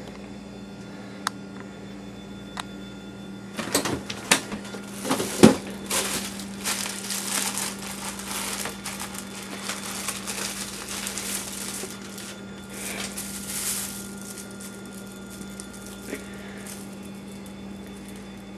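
Plastic cheese packaging crinkling and rustling as it is handled, a quick irregular string of crackles that starts about four seconds in and dies away about ten seconds later, over a steady low hum.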